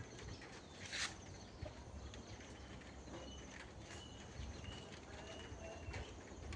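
Outdoor rural ambience with a low rumble, a brief noisy rustle about a second in, and a run of short, high chirps from birds in the second half.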